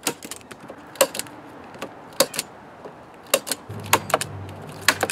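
Hand staple gun firing, sharp snapping clicks about once a second as staples are driven through plastic sheeting into a wooden frame. A low hum comes in near the end.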